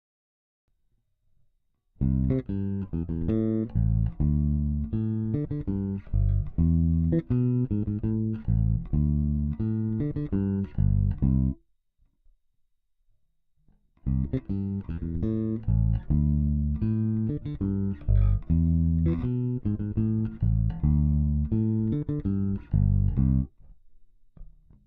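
Bacchus Woodline five-string electric bass playing a practice fragment of quick plucked notes, twice over: one run of about ten seconds starting about two seconds in, a pause of about two seconds, then the same run again, dying away near the end.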